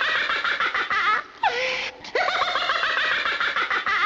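A high-pitched giggling laugh played twice as the same looped clip. Each time it ends in a short sound that falls in pitch.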